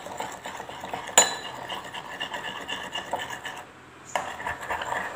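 Metal spoon stirring and scraping a wet gel mixture of aloe vera, glycerin and rose water in a small glass bowl, clinking against the glass. A sharp clink comes about a second in; the stirring pauses briefly past the middle and then resumes.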